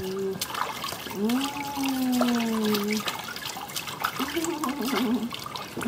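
Water splashing and trickling in a plastic baby bathtub as a newborn is washed by hand. A long, falling vocal sound runs about one to three seconds in, with a shorter wavering one near the end.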